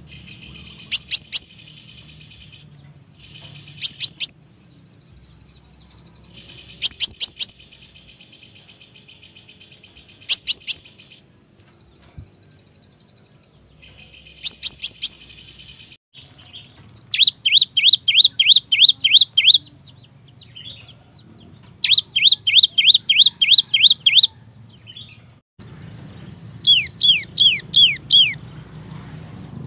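Cinereous tit (gelatik batu) singing: short bursts of three or four sharp, very high downslurred whistles every few seconds. About halfway through it switches to long, fast runs of descending whistled notes, about four a second. A steady high hiss runs underneath.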